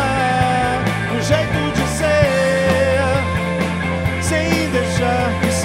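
Live rock band playing an instrumental passage on two electric guitars, electric bass and drums, with held, bending notes over the bass and cymbals.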